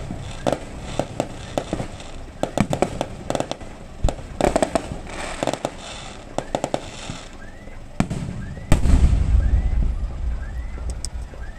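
Aerial fireworks going off: many sharp pops and clusters of crackling, then a loud bang about nine seconds in, followed by a long low rumble.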